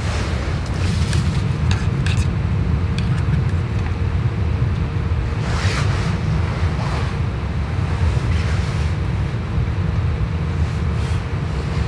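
Wind rumbling steadily on the microphone, with a few light clicks about a second in and again near the middle.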